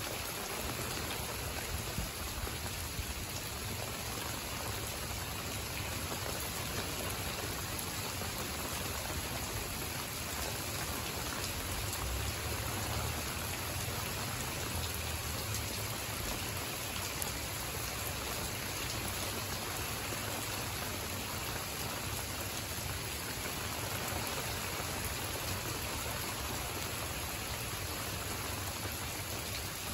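Steady rain falling on garden plants and pavement, an even hiss with a low rumble underneath.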